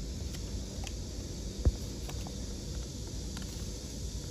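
A wide hoof-trimming blade cutting through a donkey's hoof horn, paring away separated, diseased hoof wall: a few faint crisp cuts over a steady low rumble, with one sharp knock about one and a half seconds in.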